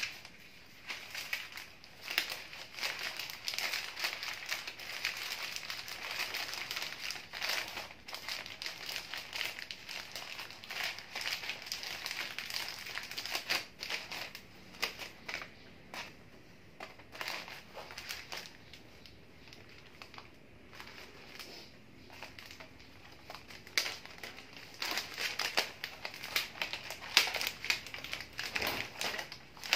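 Sheets of wrapping paper rustling and crinkling as hands fold them and gather them around a bouquet's stems. The rustling is busy through the first half, thins out in the middle, then picks up again near the end.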